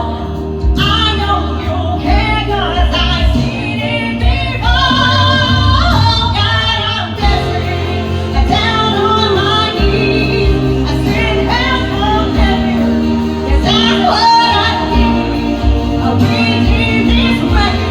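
Karaoke song: a singing voice, mostly female, over a loud backing track.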